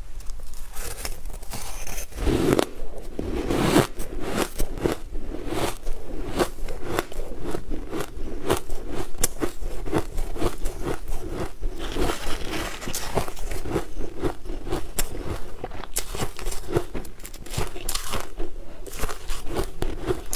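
Close-miked chewing of crunchy frozen ice, a dense, irregular run of sharp crunches that goes on without a break.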